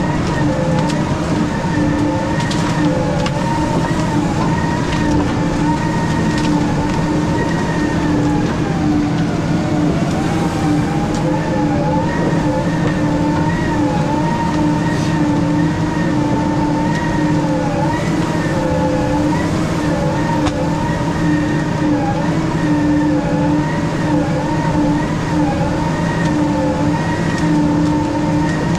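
Weiler S340 grapple skidder running under load as it drags a bundle of logs: a steady, loud machine drone with a whine above it that wavers slightly in pitch.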